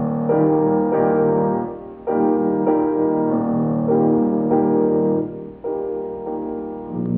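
Soundtrack music: a keyboard playing slow sustained chords that change about every second or so.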